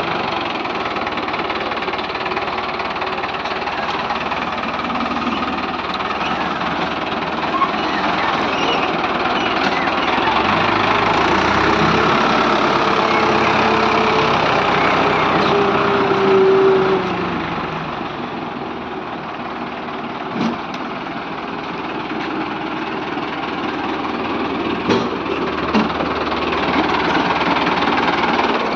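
Tractor diesel engine running steadily with a knocking chug, louder for a few seconds around the middle of the stretch, then settling back.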